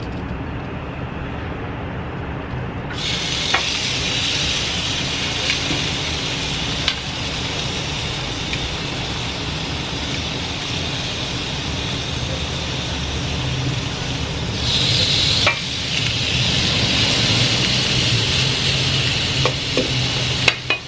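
Marinated pork spare ribs sizzling as they grill. The sizzle starts suddenly about three seconds in and grows louder again around fifteen seconds, with a few sharp clicks of utensils over a steady low hum.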